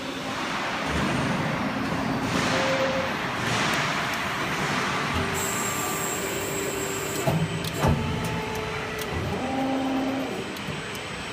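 CNC hydraulic press brake running, with a mechanical hum and rising and falling hiss, and two sharp knocks a little past the middle.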